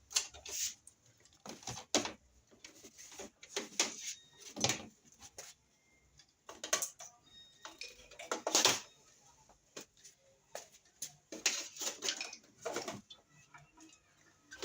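Irregular small clicks, knocks and rustles of hands handling a fan's wiring connections and switch, scattered through the whole stretch with brief quiet gaps.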